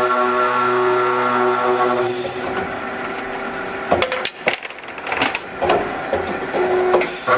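Circular-saw pipe cutting machine running with a steady whine, then a run of sharp clicks and knocks in the second half.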